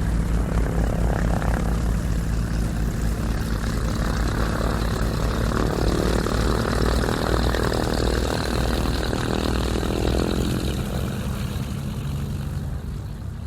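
Propeller airplane engine droning steadily, swelling briefly in the middle, then beginning to fade near the end.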